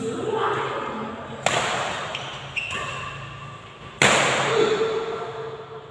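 Badminton rackets striking a shuttlecock: two sharp hits about two and a half seconds apart, the second the louder, each echoing briefly in the hall.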